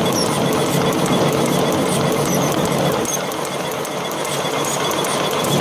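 Automatic L-fold paper napkin machine running, its folding rollers and feed turning out napkins with a steady, fast mechanical clatter. The low hum drops a little about three seconds in.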